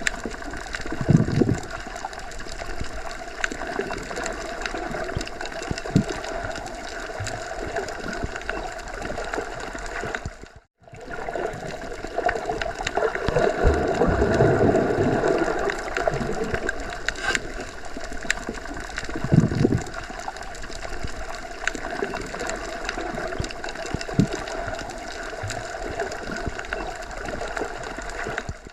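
Underwater ambience: a steady, muffled rush and gurgle of water with a few low thuds, swelling louder in the middle. The sound drops out for a moment about ten seconds in.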